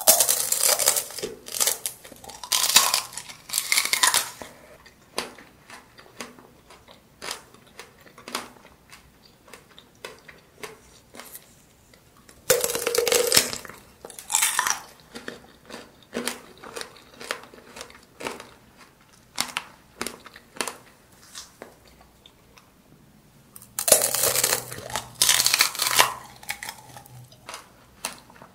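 Close-up crunching as someone bites into an apple tanghulu, a mini apple in a hard, glassy sugar-syrup shell: three loud crackling bites, near the start, about halfway and near the end, with smaller crunches of chewing between them.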